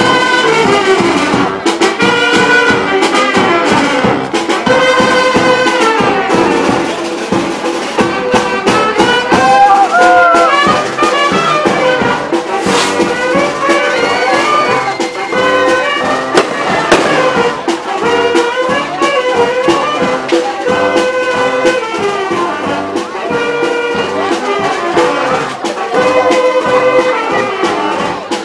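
A brass band playing live: held brass notes in chords over a steady percussion beat.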